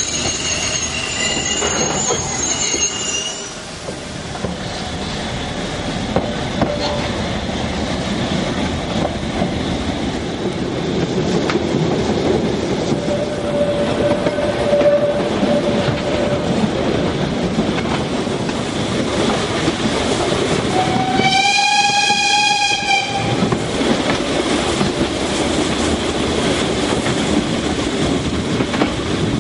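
Narrow-gauge steam train heard from the carriage: steady rolling and rattling of the wheels on the rails, with wheel squeal in the first few seconds. About twenty-one seconds in, the locomotive's steam whistle sounds for about two seconds, and another blast starts right at the end.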